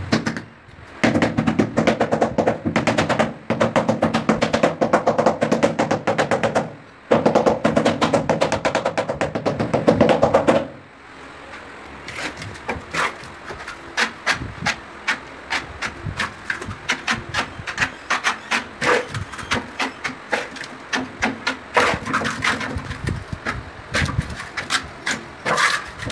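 Ceramic floor-and-wall tile being tapped down into its mortar bed. First comes a fast, continuous run of taps that breaks off twice, then it stops about eleven seconds in. After that come separate, uneven knocks several times a second.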